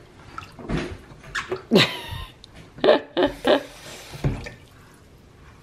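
A baby's excited squeals and short babbling cries, one sliding down in pitch, while water runs from the kitchen faucet into the sink.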